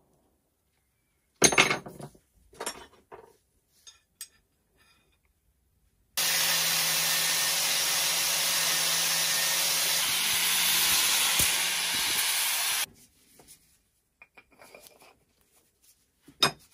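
Bench grinder grinding a steel pump rod: a loud, steady grinding noise with the motor's hum under it, starting suddenly about six seconds in and cutting off about seven seconds later. Before it, a few sharp knocks and clatters of metal parts being handled.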